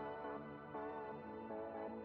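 Soft ambient background music: held chords that change roughly every three-quarters of a second.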